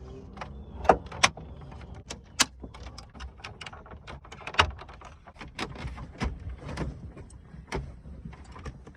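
Irregular clicks and knocks of hard plastic and metal parts being handled inside a truck's dashboard, with a few sharper knocks standing out among many light ones.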